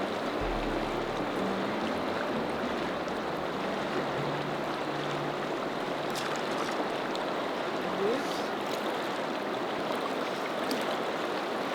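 Fast river current rushing steadily, with a few faint clicks in the second half.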